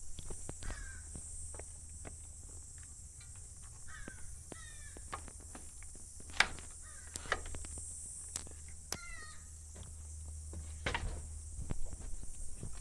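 Footsteps and knocks from handling a small handheld microphone over a steady high buzz of insects, with several bursts of short, descending bird chirps.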